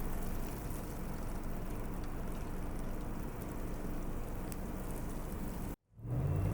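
A vehicle engine running steadily under a hiss of noise, cut off abruptly by a short silence near the end.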